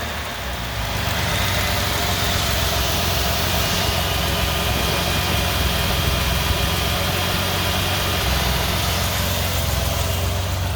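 Jaguar E-Type engine idling steadily, its revs having just dropped back, with the belt squeal that comes above 2400 RPM absent at idle.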